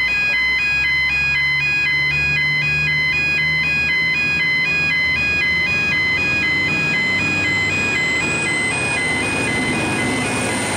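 Electronic two-tone warning alarm at the railway, switching steadily back and forth between two pitches as a train approaches. From about seven seconds in, a thin high ringing rises and then holds as the oncoming VLocity diesel railcar nears.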